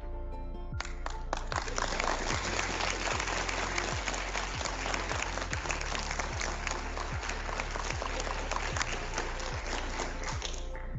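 Audience applauding, starting abruptly about a second in and stopping just before the end, over background music with a steady beat.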